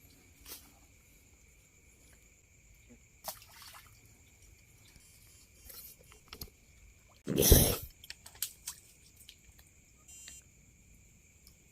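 Water splashing and dripping as someone wades through shallow water, with one loud splash about seven and a half seconds in. A steady high-pitched ringing runs beneath.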